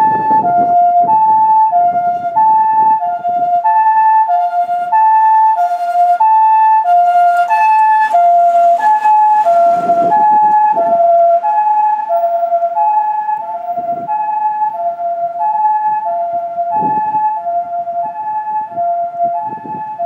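Japanese ambulance electronic siren sounding its two-tone 'pee-poh' call, a higher and a lower tone alternating about every half second, steady and repeating. It grows somewhat quieter after about twelve seconds in.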